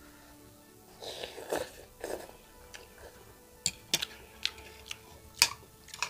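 Eating noodle soup: chewing about a second in, then several sharp clinks of a metal spoon and fork against a ceramic bowl, over faint background music.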